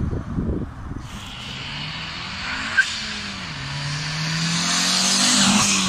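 Turbocharged Honda Civic D16Y7 four-cylinder engine pulling the car away under acceleration. Its pitch dips about three seconds in, then climbs steadily with a rising hiss over it. There is one short sharp blip just before the dip.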